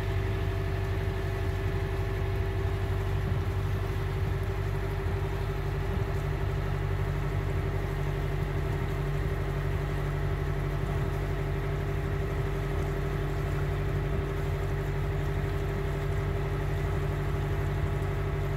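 Boat's engine running steadily underway, a constant drone that holds one pitch throughout. The engine is new and is kept at moderate revs, about 2300–2400 rpm, to go easy on it.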